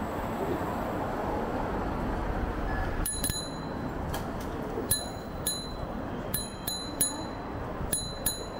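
A bicycle-type bell rung again and again: short, sharp dings, about one or two a second, starting about three seconds in, over a steady hiss of street and riding noise.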